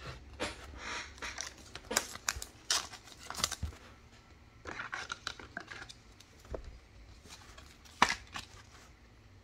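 A trading card being slid into a clear plastic sleeve and holder by hand: irregular rustling and crinkling of thin plastic with small clicks, the sharpest click about eight seconds in.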